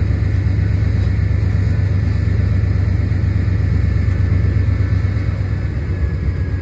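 Freight train of covered hopper cars rolling slowly past: a steady low rumble with a faint, thin high squeal that drifts slightly lower in pitch.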